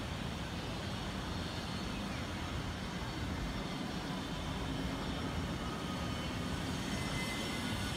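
Steady low rumble of distant city traffic, with faint thin higher tones coming in near the end.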